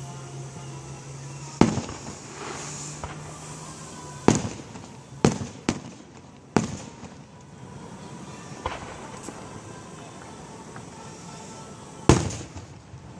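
Fireworks display: aerial shells bursting with sharp bangs, about six loud ones at uneven intervals, three in quick succession around the middle and a last one near the end, each trailing off in a rumbling echo.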